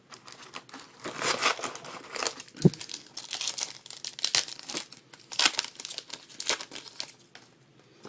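Foil wrapper of a 2012 Panini Prestige football card pack crinkling and tearing as the pack is opened by hand, in irregular rustling bursts.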